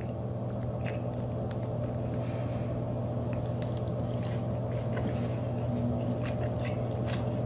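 A person chewing a piece of soft-breaded fried popcorn chicken dipped in ketchup, giving scattered small wet mouth clicks and squishes rather than crunching. A steady low hum runs underneath.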